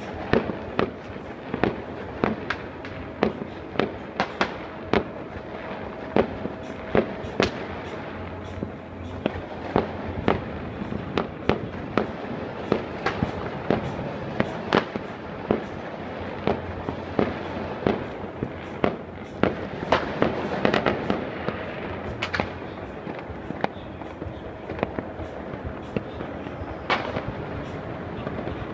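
New Year's Eve fireworks and firecrackers going off all across a city, near and far: a constant irregular series of sharp bangs and pops, several a second, over a steady wash of more distant explosions.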